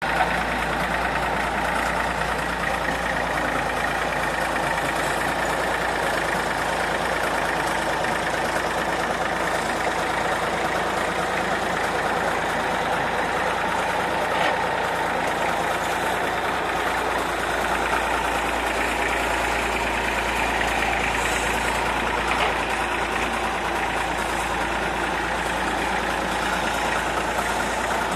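IMT 533 tractor's three-cylinder diesel engine running steadily, driving its front loader as it scoops and lifts manure.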